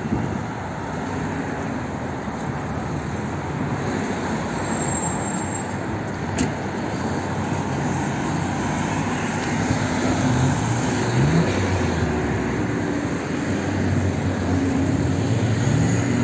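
City road traffic: cars passing in a steady noise, with engine pitch rising as vehicles pull away a couple of times in the latter half. A single sharp click about six seconds in.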